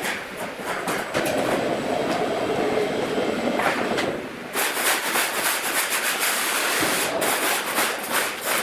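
Sawmill saw cutting through a log: a steady mid-pitched running sound, then about four seconds in a loud, rasping hiss as the cut goes on.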